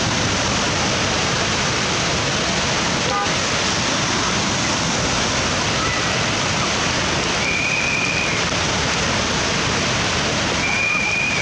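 Dam-release floodwater rushing through the river channel: a steady, loud wash of churning whitewater, with rain falling. Two short high-pitched tones sound briefly, about eight seconds in and again near the end.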